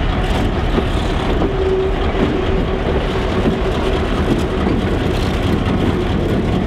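EMD SD9 diesel locomotive (16-cylinder 567C engine) passing close by, running steadily as it pushes a dead locomotive, with the rumble of wheels on the rails.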